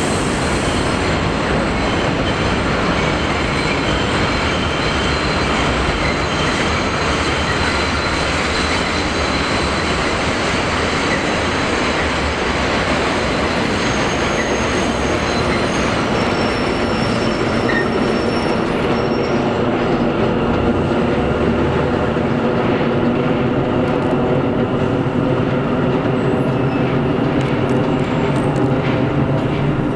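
NYC subway train running around a curve on a steel elevated structure: a steady rumble of wheels on rails, with a high-pitched wheel squeal over it that fades in the second half as the train draws away.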